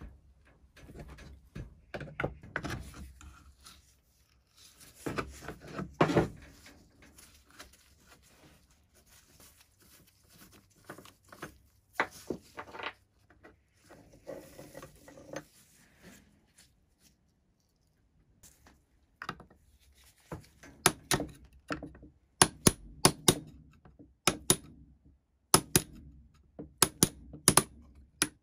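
Steel adjustable wrenches clinking and scraping on a rusty old pulley block as its hook nut is worked loose, with scattered handling clicks. About two-thirds of the way in, a hammer starts striking a pin punch in short runs of sharp metallic blows, driving a rusted pin out of the pulley's side plate.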